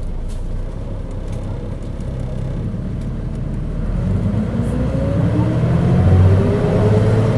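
Mitsubishi Fuso KC-MP617K city bus pulling away from a stop, heard from inside, its engine and drive whine rising steadily in pitch and getting louder from about halfway through as it accelerates. The bus runs with an abnormal, far-from-stock sound, which the uploader suspects comes from some fault or trouble.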